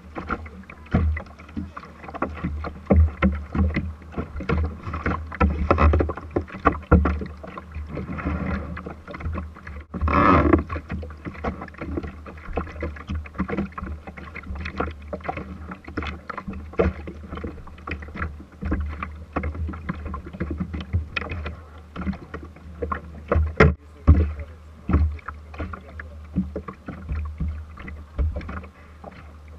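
Irregular knocks and thumps on a small fibreglass boat's deck and hull, picked up through the deck-mounted camera, over a steady low rumble, as people move about and a netted fish is brought aboard. A denser noisy burst comes about ten seconds in and a sharp single knock a little after twenty.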